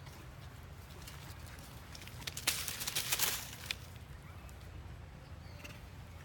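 Macaques scrambling over dry leaves and stone: a burst of rustling and scratching about two and a half seconds in, lasting just over a second, over a steady low rumble.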